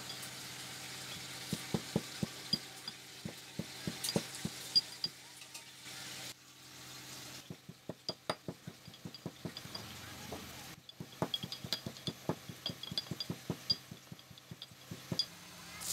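Iron pestle pounding in a small brass mortar: quick metallic knocks with a slight ring, about three or four a second, in two runs with a short pause in the middle.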